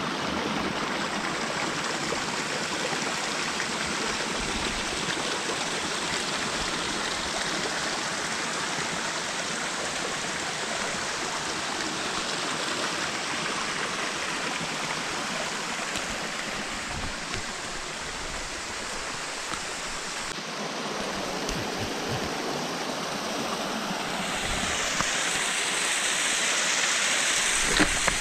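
Small mountain stream cascading over rocks, a steady rush of water that grows louder and brighter near the end.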